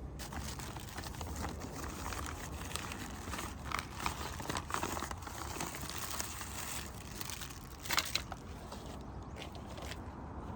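Irregular crinkling and rustling, like something being handled by hand, with the sharpest crackle about eight seconds in, over a steady low hum.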